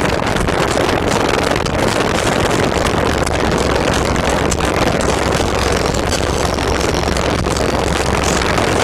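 Orion HCCA subwoofers playing loud bass in a car, a continuous heavy low rumble that overloads the microphone into a distorted roar.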